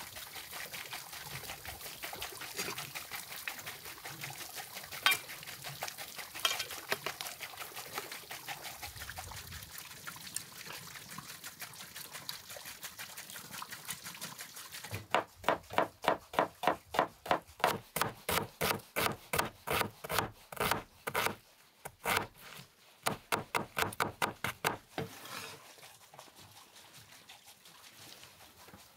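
A kitchen knife chopping red onion on a wooden cutting board, in quick even strokes of about three a second, with a short pause midway. Before the chopping, a steady crackling hiss with scattered sharp clicks.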